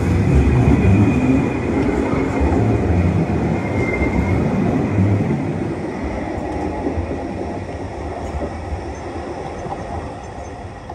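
Alstom light-rail tram running on steel rails: a loud low rumble that fades gradually as it moves away, with a faint high wheel squeal over the first few seconds.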